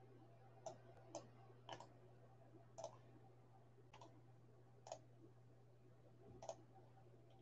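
Faint single clicks of computer keyboard keys being pressed, about seven of them at uneven intervals, over a faint steady low hum.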